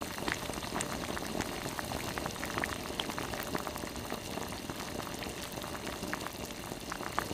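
Beef-bone broth with rice cakes at a rolling boil in a pot, bubbling steadily with many small pops.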